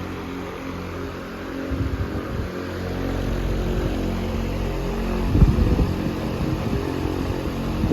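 Vintage Freshnd Aire 26-inch table fan running on high: a steady motor hum under the rush of air from the blade, with gusts of its breeze buffeting the microphone about two seconds in and again around five seconds in.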